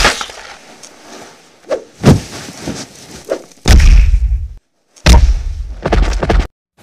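Animated fight sound effects: a string of sudden hits and heavy thuds, each dying away, the heaviest near the middle and end lasting about a second each.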